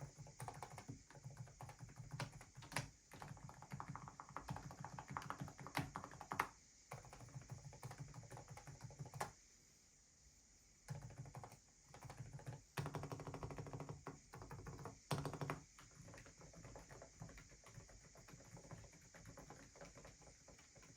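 Fast, continuous typing on an Aula F87 Pro mechanical keyboard with silent switches, giving muted keystrokes with a few sharper, louder strikes. The typing stops for about a second and a half around the middle, then resumes and grows lighter near the end.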